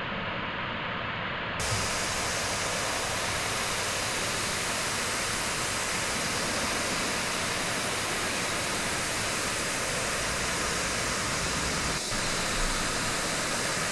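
Steady static hiss with no tone or rhythm. About one and a half seconds in it turns louder and brighter, and it dips for a moment near the end.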